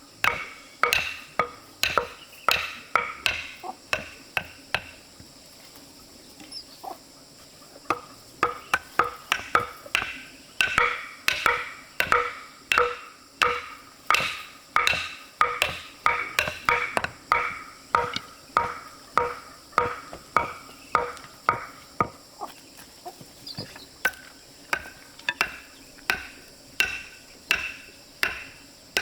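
Rhythmic chopping, a blade striking a board about twice a second, each stroke sharp with a short ring. The strokes stop for about three seconds some five seconds in, then resume.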